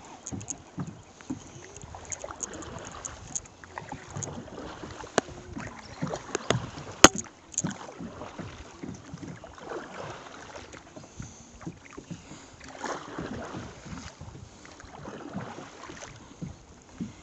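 Canoe on moving water: water swishing and lapping at the hull, swelling now and then, with scattered knocks and clicks on the boat, the sharpest about seven seconds in.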